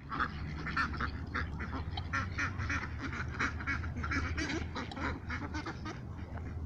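A flock of white domestic ducks and mallards quacking, many short calls overlapping in a constant chatter, as they crowd in begging for food.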